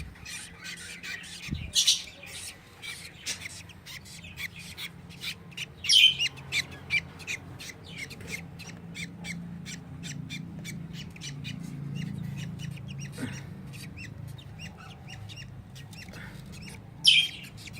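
Budgie chicks squawking and chirping as they are lifted out of the nest box one by one, with rapid high chirps throughout and loud squawks about two seconds in, about six seconds in and near the end.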